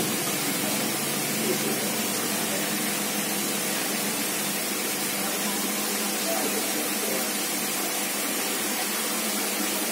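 Steady rushing hiss of water in a koi aquarium, the filter return and aeration churning the surface.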